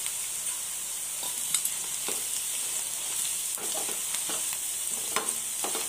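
Gongura and spinach leaves sizzling steadily in hot oil in a non-stick wok. A steel spatula scrapes and clicks against the pan as the greens are stirred, more often in the second half.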